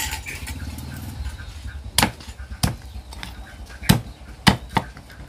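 Meat cleaver chopping through a whole cooked duck on a wooden chopping board: five sharp, unevenly spaced strikes, starting about two seconds in.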